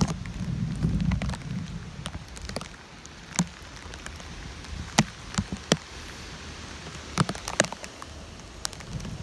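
Tropical-storm rain falling, with scattered sharp ticks of single drops hitting close by, and a low rumble in the first couple of seconds.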